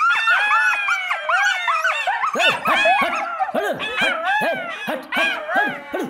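A pack of golden jackals howling together, many overlapping wails sliding up and down in pitch, breaking into shorter, quicker yips from about halfway.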